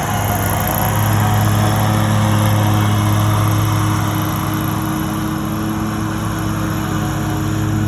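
Small gasoline engines of lawn equipment running steadily: a constant low drone with a hiss on top.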